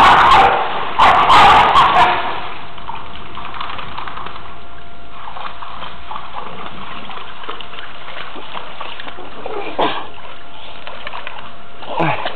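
A dog barking and growling with splashing water in the first two seconds, then the steady hiss of rain, with a couple of faint splashes later on.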